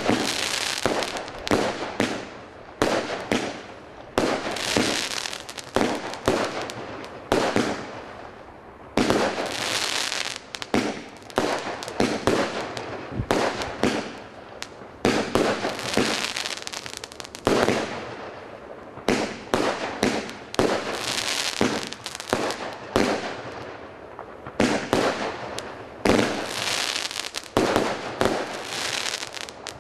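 Panther Fireworks 'Little Timmy' large-bore 50-shot firework cake firing a continuous barrage: a sharp report every second or so as shots burst, each with a trailing hiss from the palm and crossette effects.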